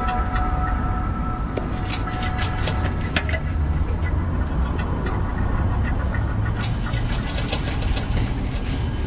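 Steady low rumble of city street noise, with clusters of light clicks and knocks about two seconds in and again near the end.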